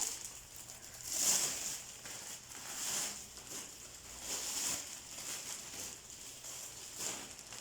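A floor spread being handled and spread out, rustling and crinkling in several separate swells.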